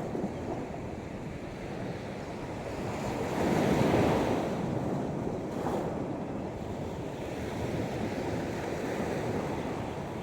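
Sea surf washing onto the shore, a continuous rush of water with one wave swelling louder about four seconds in.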